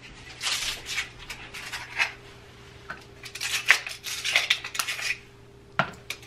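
Ice cubes being twisted loose from a plastic ice cube tray and dropped into a cup: several short bursts of cracking and clinking clatter.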